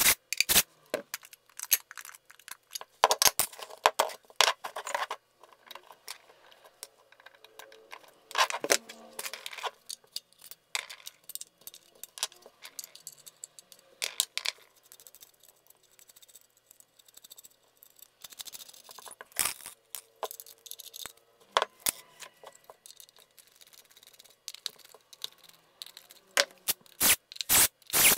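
Screws and a metal guitar-pedal enclosure being handled as it is unscrewed and opened: scattered clicks, clinks and rattles, with denser clusters about three seconds in, around eight seconds, and near the end.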